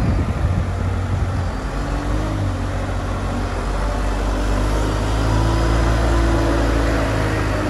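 Diesel engine of a Dieci Runner 40.13 telehandler running while its boom and bucket are worked, the engine note rising and getting louder about five seconds in.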